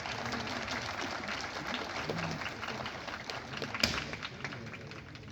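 Crowd applauding in a dense, steady patter, with one loud, sharp drill-boot stamp about four seconds in.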